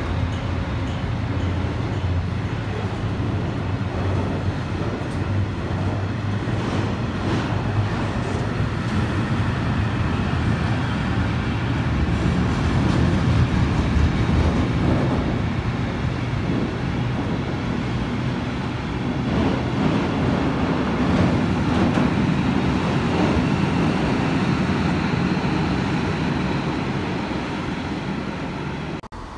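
Freight train of curtain-sided wagons rolling past at speed: a steady rumble of wheels on the rails that swells a little midway and again later on.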